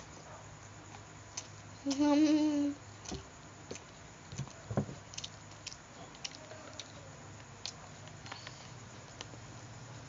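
Eating sounds: scattered wet clicks and smacks of chewing, with one short hummed 'mmm' about two seconds in.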